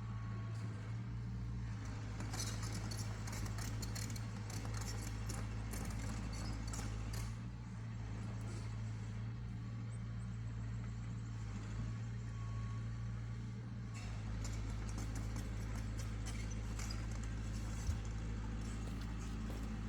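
Heavy engine running steadily at a low, even pitch, with irregular rattling and clanking over it and one sharp knock near the end.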